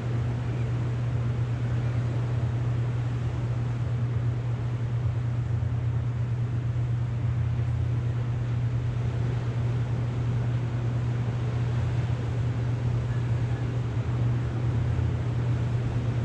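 Wind and distant surf: a steady low rumble with an even hiss over it.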